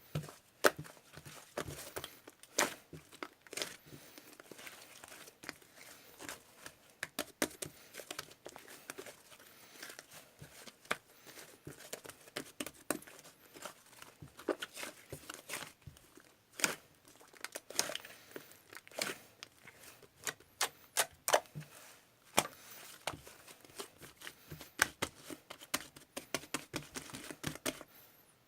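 Slime being squished and stretched by hand, making many irregular sharp pops and crackles, one after another.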